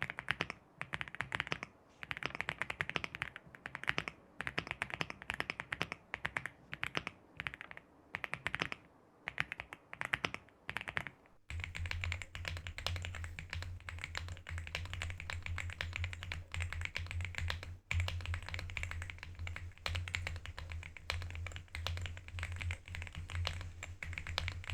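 Typing on an Aula F75 mechanical keyboard: fast runs of keystroke clicks in bursts, first with its stock keycaps, then, after an abrupt cut about halfway, with pudding keycaps fitted, now continuous over a steady low hum.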